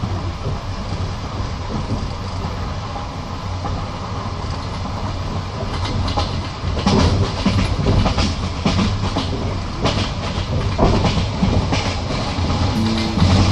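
Passenger train heard from inside the carriage: a steady rumble of wheels on the rails. About halfway through it grows louder into a quick run of clickety-clack as the wheels strike rail joints.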